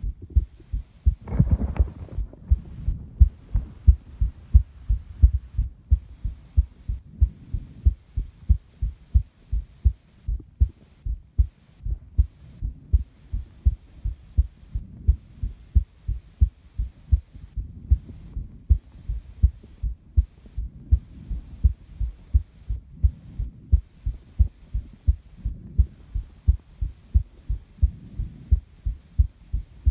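A human heartbeat recorded close against the chest: a steady, regular lub-dub of low thumps. There is a short noisy sound about a second and a half in, and the person's breathing swells softly every few seconds.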